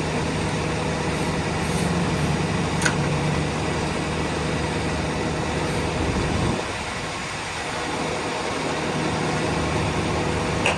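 Engine of a 9 cubic yard concrete mixer truck running steadily, with a constant low engine note. About two thirds of the way through the engine note drops away and the sound softens for a second or so before picking up again.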